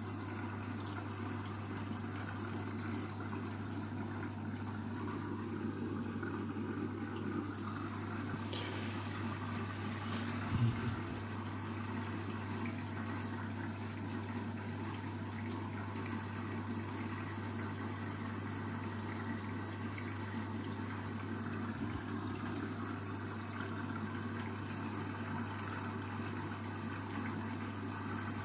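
Washing machine draining: its drain pump hums steadily while water rushes and gurgles through it, with one low thud from the drum about ten seconds in.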